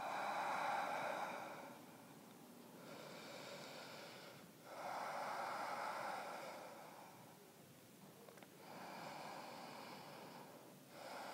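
A woman's slow, deep ujjayi breathing held in downward facing dog: long, hissing breaths in and out through the throat, about five in turn, each lasting a second and a half to two seconds with short pauses between.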